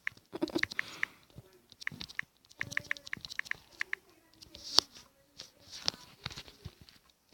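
Quick runs of light clicks from a phone's on-screen keyboard as a message is typed, several taps a second with short pauses between runs.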